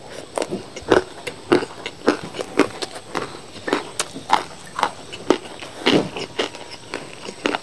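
A person chewing crunchy fried rice with tiktak crackers close to the microphone: crisp crunches about twice a second, in a steady chewing rhythm.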